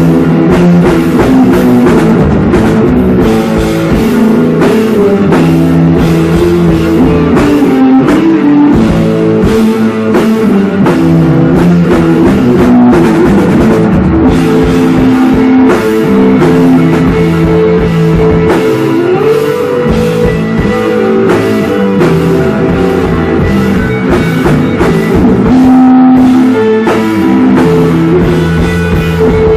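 Rock band playing loud and live: electric guitar over a drum kit keeping a steady beat, in a stretch without vocals.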